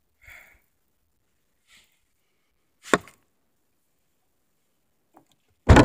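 A sharp knock about three seconds in, then a louder, heavy thud near the end, as a snow shovel is handled and taken out of a car trunk.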